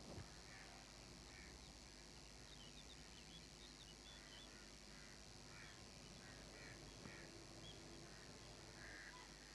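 Near silence: faint background ambience with scattered faint high chirps.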